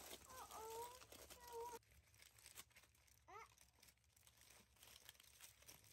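Faint crinkling and crackling of aluminium foil as a toddler's hands crumple and pull at it. A short, high-pitched held call rises and then levels off in the first two seconds, and a brief rising chirp follows about three seconds in.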